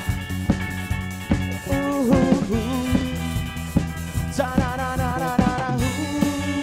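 Live rock band playing a disco-flavoured rock song: drum kit keeping a steady beat under electric bass and electric guitar, with a melody line that slides in pitch over them twice.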